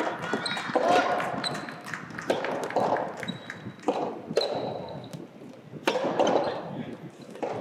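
Soft tennis rubber ball being struck by rackets and bouncing on an indoor court, a sharp pop every second or so, over a murmur of voices in a large hall.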